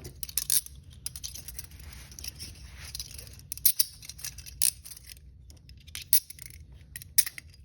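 Steel hinged handcuffs being handled and clicked shut on the wrists: irregular small metallic clicks and rattles, a few sharper ones among them.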